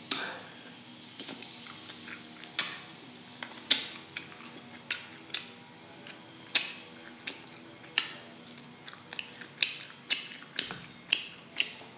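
Close-up eating sounds of biting and chewing sticky whiskey-glazed pork baby back ribs off the bone: irregular wet smacks and clicks, about two a second.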